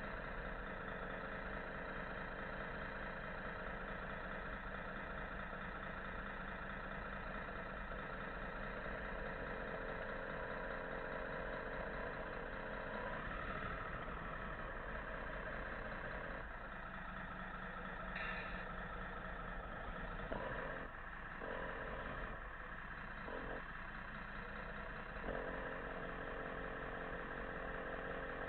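Radio-controlled model trucks running with a steady engine-like hum. The tone shifts about halfway through, and parts of the sound cut in and out near the end.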